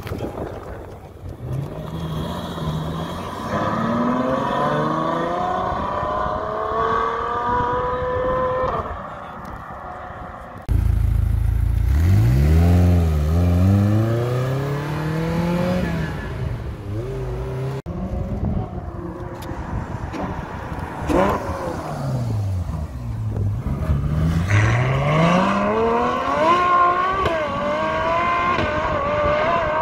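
Ferrari sports cars, a GTC4Lusso among them, accelerating hard one after another, each engine's pitch climbing and then dropping back as it shifts up through the gears. The sound jumps suddenly louder about eleven seconds in and changes abruptly again around eighteen seconds.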